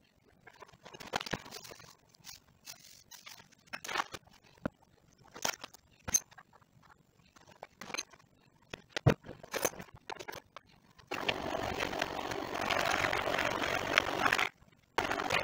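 Scattered clicks and rustles from handling a bowl of blueberries. About eleven seconds in, an electric hand mixer starts running, its beaters churning through whole blueberries and sugar. It cuts out briefly near the end, then runs again.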